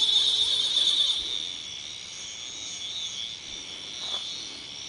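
Dusk insect chorus: a steady, high-pitched buzzing trill, loudest for about the first second and then dropping back.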